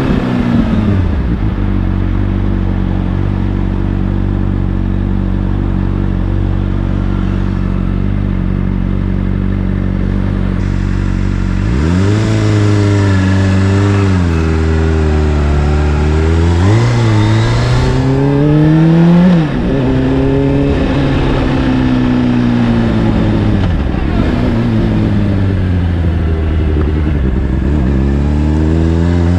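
Honda CBR600RR inline-four engine running through an Akrapovic exhaust. It idles steadily for about ten seconds, then pulls away with the revs climbing and dropping through several upshifts, eases off, and accelerates again near the end.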